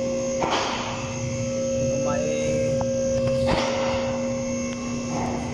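A steady hum at two fixed pitches, with two brief noisy bursts, about half a second in and again past three seconds.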